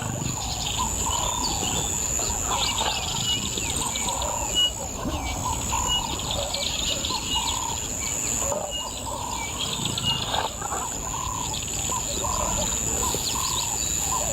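Natural bush ambience: repeated short bird calls and chirps over a steady, high-pitched insect drone.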